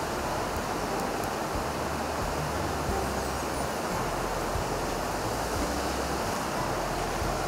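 River water rushing, a steady, even noise.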